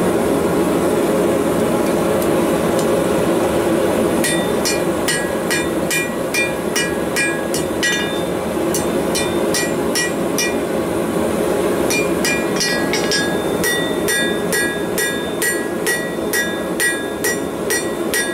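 Hand hammer striking hot steel on an anvil, starting about four seconds in: two or three blows a second with short pauses, each with a ringing anvil tone. Under it runs a steady roar, typical of a propane forge burner.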